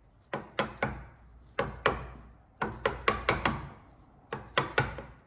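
Repeated sharp knocks on timber in quick clusters of two to five, about fourteen in all: the tail of a hand-cut through dovetail joint being tapped into its socket.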